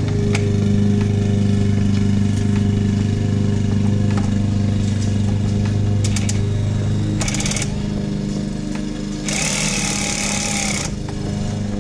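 Cordless drill driving the lip's mounting screws up into the bumper in two short runs, a brief one about seven seconds in and a longer one of about a second and a half near the end, over a steady low hum.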